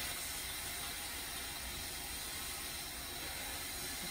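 Handheld shower head spraying a steady stream of water onto a small puppy's wet coat, an even hiss with no break.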